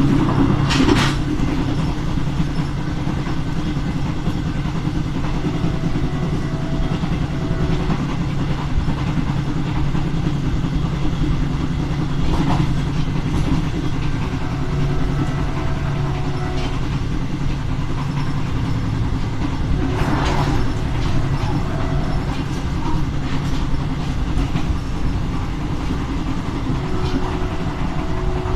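Train running along the line behind SNCFT diesel-electric locomotive 040-GT-566. The diesel engine gives a steady, loud hum under the rumble of the wheels on the rails, with a few sharp clacks over rail joints.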